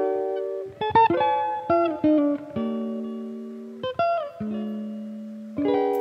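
Background music of a plucked guitar: single notes and chords struck every half second to a second, each left to ring and fade.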